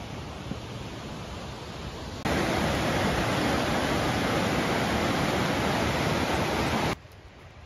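Steady rushing of whitewater from river rapids and a waterfall. It is fainter at first, jumps suddenly louder about two seconds in, and drops off abruptly near the end.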